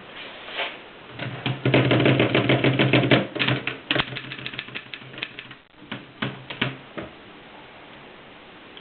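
Mercedes 6 typewriter being typed on: a fast run of key strikes about one to three seconds in, with a steady low hum beneath it. Then slower, scattered strikes that stop about seven seconds in.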